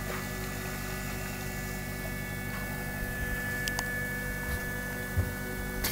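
Steady electrical-sounding hum made of several constant tones, with a few faint clicks in the middle and a soft low thump near the end.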